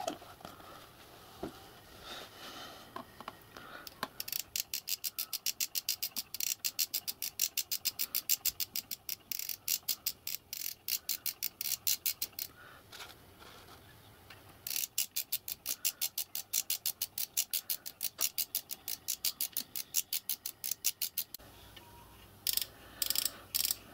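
Hand-cranked mechanical lubricator for a miniature steam locomotive being turned on the bench to pump oil through its pipes, clicking rapidly at about five clicks a second. There are two long runs of clicking with a short pause between, then a few more clicks near the end. The oil has not yet reached the outlets.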